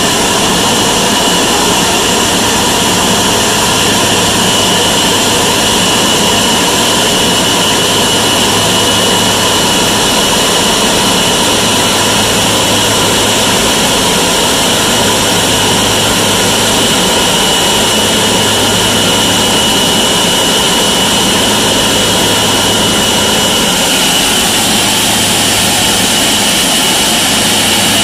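Boeing 777-200ER jet engines idling at close range: a steady loud rush with a high whine held at one pitch and a low hum underneath.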